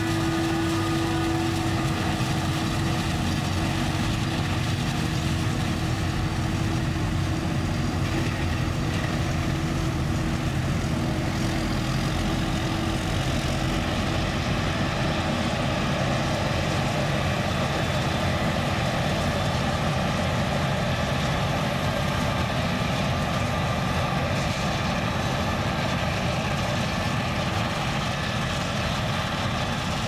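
Claas Jaguar 970 self-propelled forage harvester running under load while chopping maize for silage: a steady heavy drone of the engine and the cutterhead and blower, with no break.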